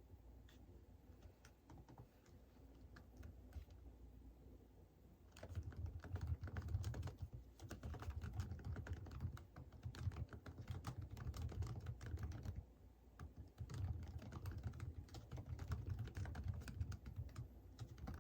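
Typing on a computer keyboard. For the first few seconds there are only scattered faint key taps, then steady fast typing sets in. The typing pauses briefly about two-thirds of the way through, then carries on.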